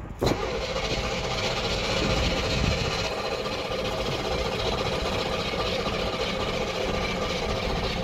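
1977 Chevrolet Corvette's 350 small-block V8 being cranked over on the starter for about eight seconds at a steady, even pace without catching, then cut off near the end. It is a hard cold start that the owners put down to a flooded engine.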